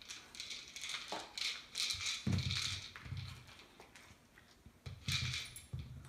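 A dog pushing a Busy Buddy Kibble Nibble treat-dispensing toy around a tile floor with its nose: the plastic toy knocks and rolls in short bursts with kibble rattling inside, with heavier knocks about two seconds in and again near five seconds.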